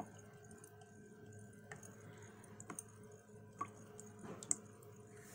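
Faint, irregular small ticks and clicks from a popsicle-stick water-wheel model turning slowly as water trickles through it, its flow restricted so the wheel goes slowly. A steady low hum runs underneath, and a sharper click comes near the end.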